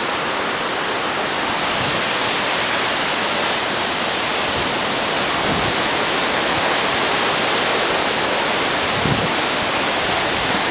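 Waterfall: a steady rush of falling water, with a few faint low thuds.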